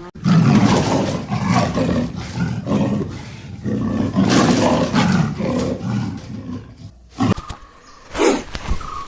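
A big cat roaring and growling: a run of rough, rasping roars for about seven seconds, followed by a few short separate bursts near the end.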